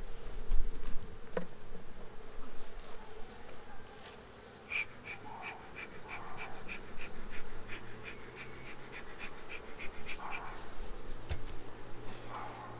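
Honeybee colony buzzing over an open brood box, a steady hum. A thump comes near the start, and from about five to ten seconds in a high chirp repeats about four times a second.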